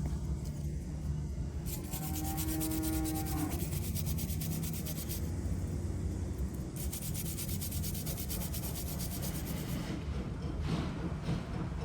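Abrasive sanding or scrubbing on a starter motor part, in two spells of a few seconds each, over a steady low hum.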